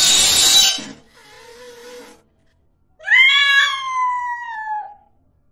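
Domestic cat giving one long, drawn-out yowl of about two seconds, about three seconds in, sliding slowly down in pitch as it squares off with its own reflection. A brief loud rush of hiss-like noise comes in the first half-second.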